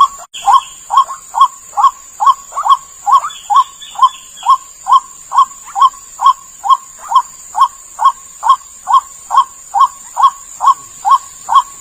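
White-breasted waterhen (ruak-ruak) lure call: short, sharp notes repeated about twice a second in an even, unbroken series, as used to draw the bird in for trapping.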